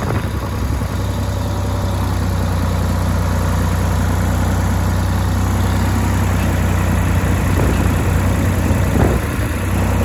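Farm tractor engine running steadily at an even speed, heard close to its upright exhaust muffler.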